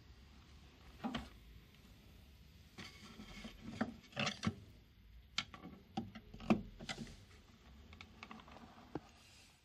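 Irregular light knocks, taps and rubbing of wood and tools being handled, about a dozen scattered over several seconds.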